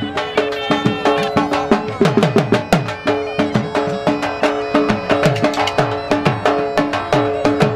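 Live folk dance music: a drum beaten in fast strokes, its deep strokes sliding down in pitch, over a steady held melody note.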